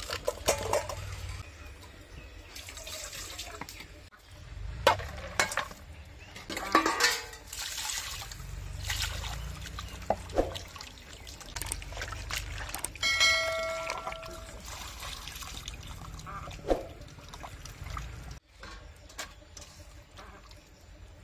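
Water splashing and dribbling as raw pork pieces are washed and turned by hand in an aluminium colander, with occasional sharp knocks of metal bowls.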